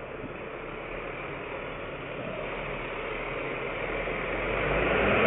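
Engine and vehicle noise heard from inside a car as a tractor-trailer turns close alongside: a steady rumble and hiss that grows louder over the last two seconds as the truck comes nearer.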